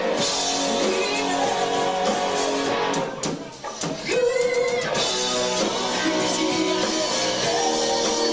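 Rock band playing live, with electric guitar, drum kit and singing. The sound drops away briefly about three seconds in, a single held note sounds, and then the full band comes back in.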